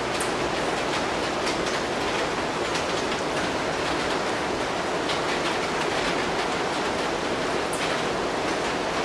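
Steady rain falling, an even hiss with a few sharper drip ticks.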